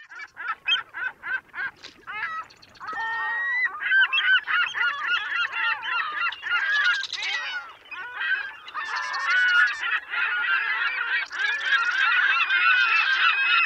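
A flock of birds calling: separate short calls at first, about four a second, then from about three seconds in many calls overlapping.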